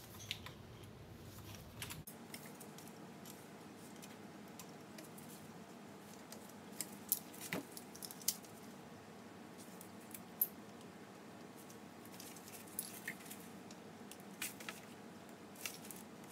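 Quiet workbench handling: pliers clicking and tapping against small metal starter parts as the keepers are pulled tight against the stud head. The clicks are sparse and irregular, a few clustered about 7 seconds in and near the end, with a sharper one about 10 seconds in.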